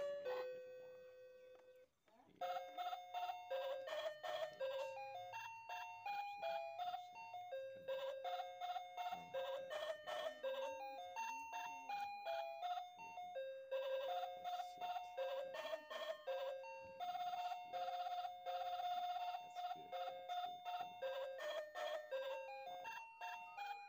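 Background music: a quick, bouncy melody of short pitched notes, breaking off briefly about two seconds in.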